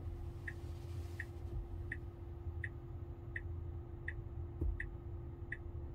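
Car's turn-signal indicator ticking steadily, about one and a half ticks a second, over a low steady cabin hum.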